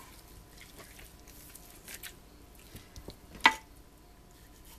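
Faint wet squishing of raw chicken skin and meat being pulled and handled by hand. About three and a half seconds in comes a single sharp click with a short ring.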